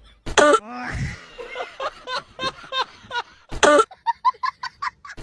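Hacking cough: two loud harsh coughs, one just after the start and one about three and a half seconds in. Between and after them come wheezing, rasping breaths, ending in a quick run of short squeaky wheezes.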